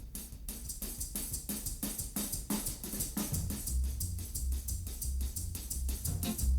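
Background music with a steady drum beat, a heavier bass line coming in about three and a half seconds in.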